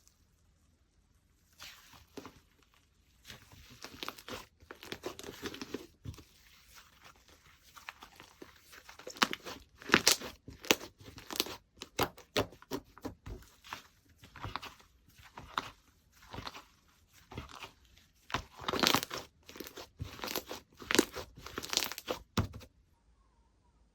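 Hands playing with slime: stretching, folding and pressing it, giving an irregular run of sticky clicks, pops and squishes that stops shortly before the end.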